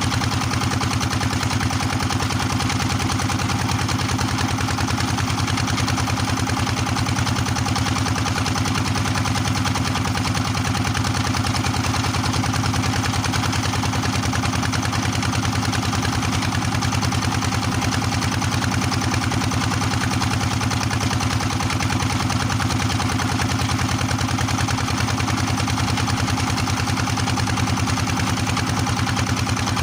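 Small fishing boat's engine running steadily at a constant speed, with an even low drone and firing rhythm.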